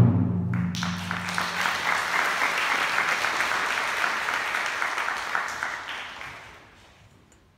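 Concert audience applauding: the clapping breaks out as the wind band's last chord dies away in the first second or so, holds steady, then fades out about six to seven seconds in.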